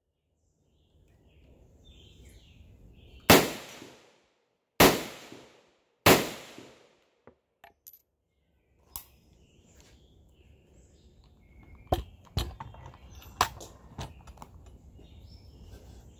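Three shots from an SKS semi-automatic rifle in 7.62×39 mm, about a second and a half apart, each with a ringing tail. Small clicks follow, then a few sharper knocks and clacks near the end.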